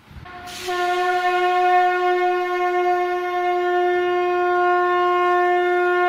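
Conch shell (shankha) blown in one long, steady note, starting with a breathy rush of air about half a second in.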